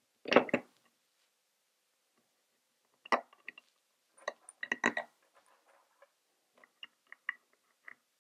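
Bolts being dropped into the holes of a downrigger's low-profile swivel base and handled into place: scattered clicks and light knocks. The loudest cluster comes about half a second in, more follow around three and five seconds in, then fainter ticks.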